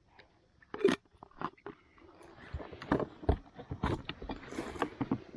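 Kayak on the move: a run of irregular knocks and clunks against the boat, with a haze of water noise building from about two seconds in.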